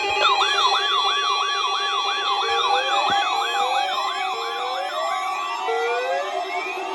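Electronic siren tones: a fast up-and-down warble about two and a half times a second starts just after the opening and fades out about five seconds in. Slower rising whoops about once a second set in partway through and carry on, over a steady held tone.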